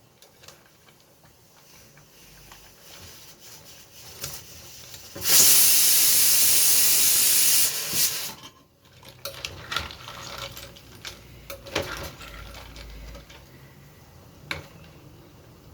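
Loud steady hiss from cooking on the stove, about two and a half seconds long, starting and stopping abruptly, followed by scattered clicks and knocks.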